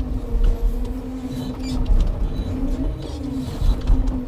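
Scania timber truck's diesel engine running, its pitch rising and dipping every second or so as the revs change, over a low rumble.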